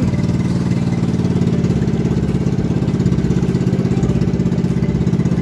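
Small engine running steadily at an even speed, its rapid firing pulses unchanging.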